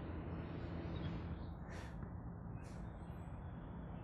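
Outdoor background ambience: a steady low rumble with two short, high, harsh sounds about a second apart near the middle.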